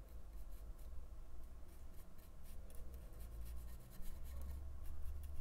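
Faint, irregular scratchy strokes of a fine paintbrush working paint into a textured painting board, over a low steady hum.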